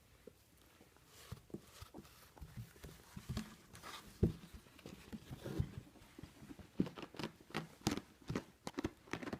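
Ferret dooking: a run of short, soft clucks in irregular quick clusters, more frequent in the second half, with a towel rustling between about one and four seconds in.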